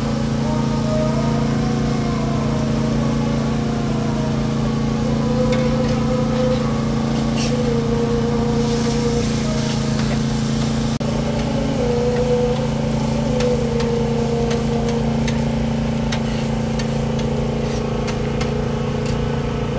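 A steady mechanical drone with a constant low hum. Over it come short metallic ticks and scrapes of a spatula and tongs on a steel flat-top griddle, more of them in the second half.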